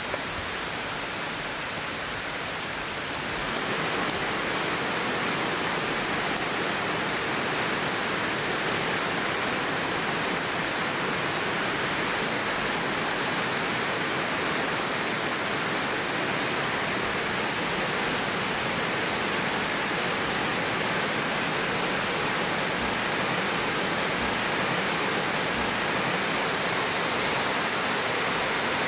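Steady rushing of a forest stream and small waterfall. It comes in louder about three and a half seconds in and then holds even, over a quieter hiss at the start.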